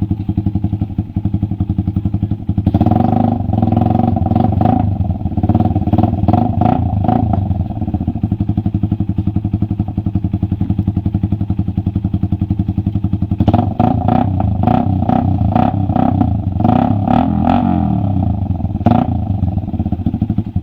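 Suzuki Raider 150 carbureted single-cylinder four-stroke engine with an open exhaust pipe idling, revved in quick repeated throttle blips about 3 to 7 seconds in and again from about 13 to 19 seconds. The sound stops abruptly at the end.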